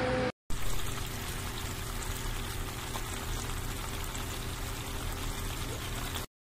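Hot oil sizzling steadily as small whole fish fry in the non-stick pot of an electric multicooker. It starts after a brief gap and cuts off abruptly near the end. The tail of a sung note ends just at the start.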